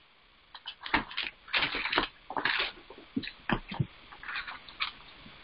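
Bible pages being turned while the passage is looked up: irregular paper rustling with light handling knocks.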